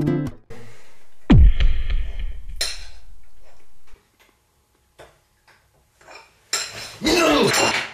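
A metal fork clinking and scraping on a plate as someone eats cake, with scattered small clicks, after a sharp thud about a second in. Near the end comes a loud burst of noise.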